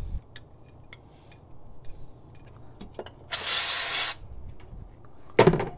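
A short burst from an aerosol can of brake cleaner, an even hiss lasting just under a second in the middle, sprayed into an injector port to flush loosened carbon. Small scattered clicks of tool work come before it, and a short louder noise comes near the end.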